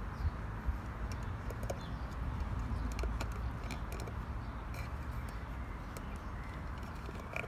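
Labrador puppy chewing an empty tin can, its teeth scraping and clicking on the metal in scattered short clicks, over a steady low rumble.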